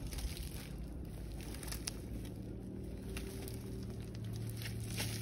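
Hands scraping and scooping loose soil and gravel, a few scattered scratches and clicks, over a steady low hum.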